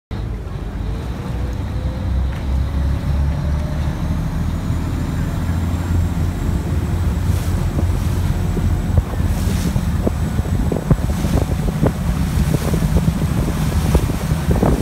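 Passenger river boat's engine running with a low rumble that rises slightly in pitch over the first few seconds as the boat pulls away from the pier. Water rushes and splashes along the hull, more often from about halfway through, with wind buffeting the microphone.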